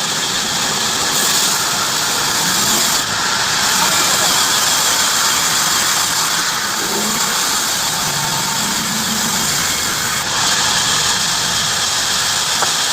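Heavy-duty bandsaw running and cutting through wood, a loud, steady noise with brief small dips in level about three and ten seconds in.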